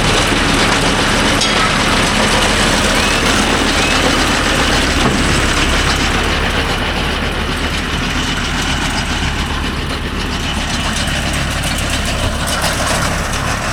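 Mahindra Yuvo Tech Plus 585 4WD tractor engine running steadily.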